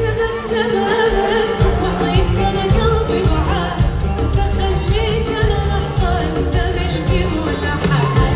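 A woman singing an Arabic song live, her voice sliding through ornamented melodic lines over an orchestra with strings, amplified through a concert sound system.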